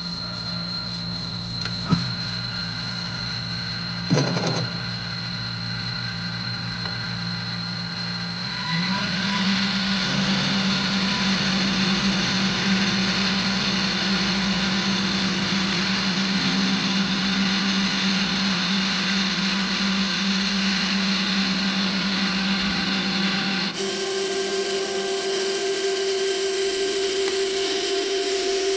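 Metal lathe running with a steady geared hum and whine, with two sharp clicks in the first few seconds. About nine seconds in it gets louder and rougher, and near the end the hum shifts to a different pitch.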